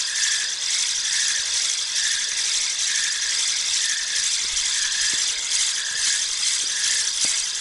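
Spinning reel being cranked to reel in a hooked fish: a steady rattling of the reel's gears, with a pulse at each turn of the handle, about two a second.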